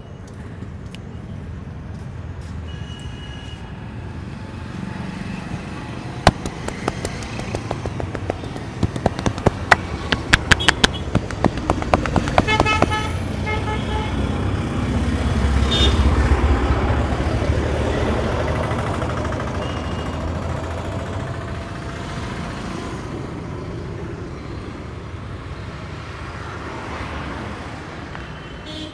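Busy street traffic with vehicle horns tooting in short repeated beeps around the middle, and a heavy vehicle rumbling past, loudest a little past halfway. Leading up to the horns, a quick run of sharp hand slaps: the tapping strokes of a head massage.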